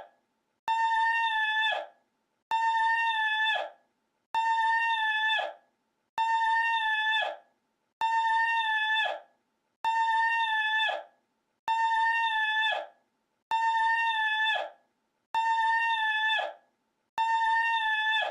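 The same short recording of a high, steady-pitched cry, about a second long and starting with a click, played on a loop: about ten identical repeats, one roughly every two seconds, with silence between.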